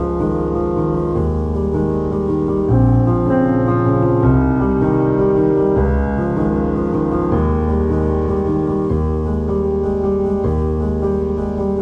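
Background music led by piano, with held chords that change every one to two seconds.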